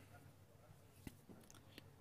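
Near silence: room tone with a few faint clicks about a second in and near the end.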